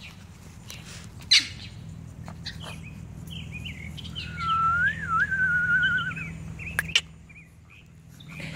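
Birds chirping, with one wavering whistled call about four to six seconds in, over a low steady hum. There are two sharp clicks, one about a second in and one near the end.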